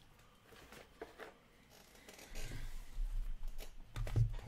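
Hands handling trading-card boxes and packs: faint rustling and light clicks, then low bumps and a brief rustle from about two seconds in, with a sharper knock near the end.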